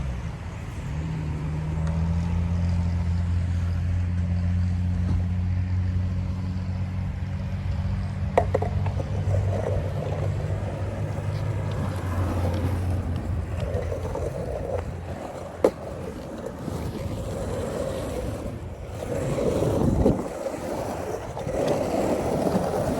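Skateboard wheels rolling on a concrete pump track, a rumble that swells and fades, with two sharp clacks. A steady motor hum runs under it for the first ten seconds or so, then fades out.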